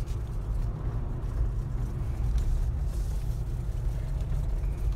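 Steady low rumble of a Jeep's engine and tyres on the road, heard from inside the cabin while driving.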